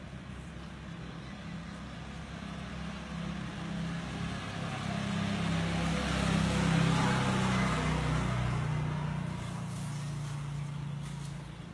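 A motor vehicle's engine passing on the street, growing louder to a peak about halfway through and then fading away.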